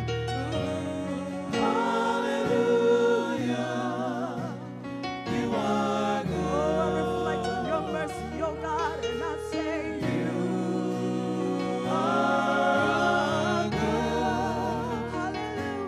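Gospel worship song sung by a small group of singers on microphones, with a woman leading. The voices hold long notes with vibrato over steady, slowly changing low chords.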